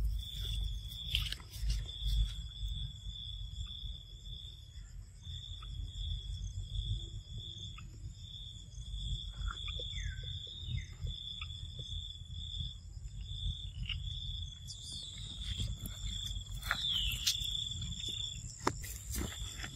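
Insects trilling steadily at a high pitch, with a faster, fainter trill above it, over a constant low rumble and scattered small clicks and rustles. A short rising chirp sounds about halfway through, and a brief falling sweep near the end.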